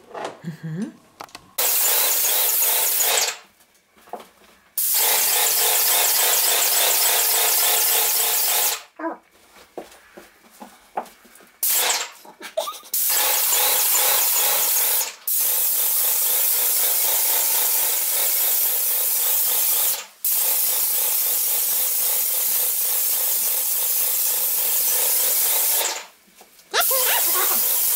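Wagner Control Pro 250M airless paint sprayer spraying paint in about seven steady bursts of a few seconds each. Each burst starts and stops abruptly as the gun's trigger is pulled and released, with brief pauses between them.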